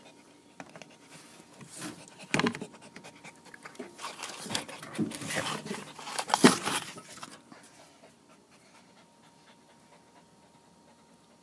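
Welsh corgi puppy panting, with a few sharp knocks, the loudest near the middle; the sound dies down to faint for the last few seconds.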